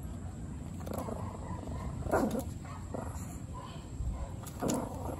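Dog growling in a few short rough bursts, the loudest about two seconds in, over a steady low rumble.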